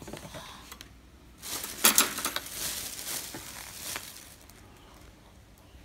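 Clatter and rustling from handling foam takeaway food boxes at a table: a couple of sharp clicks about two seconds in, then a couple of seconds of rustling that dies away.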